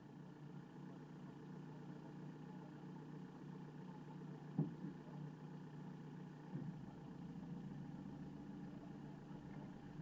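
Car driving on a dirt road: a faint, steady engine and road hum, with a sharp thump about halfway through and a smaller one about two seconds later.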